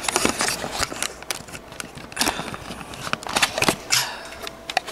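Handling noise as the camera is grabbed and repositioned: irregular rustling, knocks and clicks, with several sharper knocks around the middle and shortly before the end.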